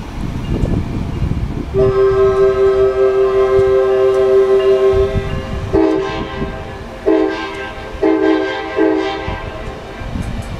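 Amtrak train's horn sounding one long chord blast of about three and a half seconds, then a run of shorter blasts, over the low rumble of the train's cars rolling past.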